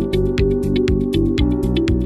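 Electronic background music with a steady, fast beat and sustained synthesizer notes.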